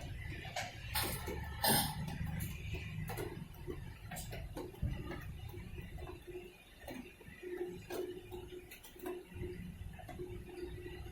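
LG Fuzzy Logic 6.5 kg top-load washing machine running its wash cycle with irregular clicking and knocking, the 'khad khad' rattle of a faulty gearbox. A low rumble dies away in the first few seconds, and from about halfway a short motor hum comes and goes.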